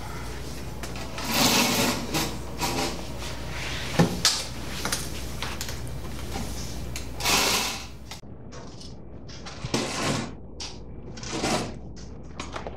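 Scuffling and rustling of clothes and a backpack as it is grabbed and jostled, with a sharp knock about four seconds in. Near eight seconds the background hum drops away and only short, scratchy rustles remain.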